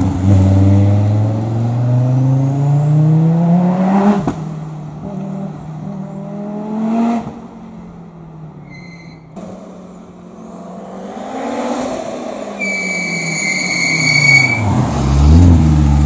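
Audi Sport quattro S1's turbocharged inline-five engine accelerating hard away, its pitch climbing and breaking off at two upshifts, then fading into the distance. It comes back with a high, steady squeal lasting about two seconds, and the engine is loud and close near the end.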